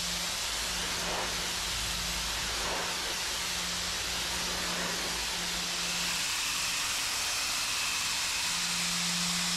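Paxcess P1.1 electric pressure washer spraying a steady hissing jet of water against a metal container. A low hum from its pump drops in and out under the spray.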